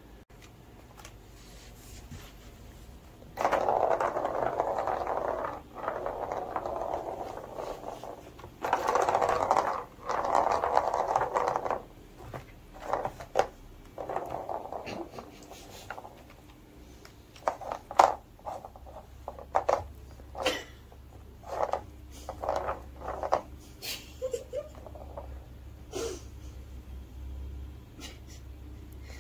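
A plastic ball rolling around a plastic cat track toy in several spells of a few seconds each, then a run of clicks and knocks as kittens bat the ball and paw at the track.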